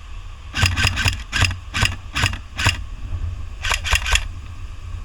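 Airsoft gun firing single shots, eight spread over about two seconds, then three more in quick succession a second later. Under the shots is a steady low wind rumble on the microphone.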